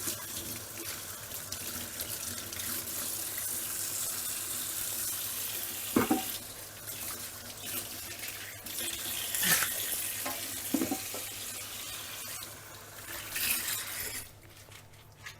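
Kitchen tap running steadily into a sink, with a few knocks and clinks about halfway through. The water is shut off near the end.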